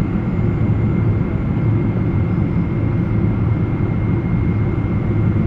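Boeing 777 airliner giving a steady low rumble, with a faint steady high whine over it and no sudden changes.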